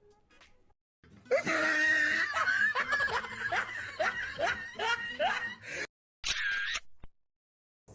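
Laughter: a run of short, quick laughs, each rising in pitch, for about four and a half seconds, followed by a brief high-pitched sound near the end.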